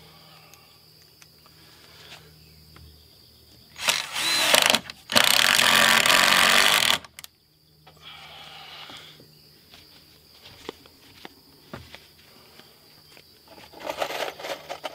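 Ryobi cordless drill driving a screw into treated lumber, running in two goes: a short burst about four seconds in, then a steady run of about two seconds that stops abruptly. Light clicks and clatter of handling around it.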